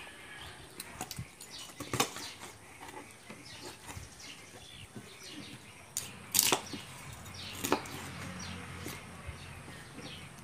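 Knife chopping through a raw whole chicken on a plastic cutting board: a few sharp knocks as the blade goes through and strikes the board, the loudest a quick double knock about six seconds in, with quieter cutting and handling sounds between.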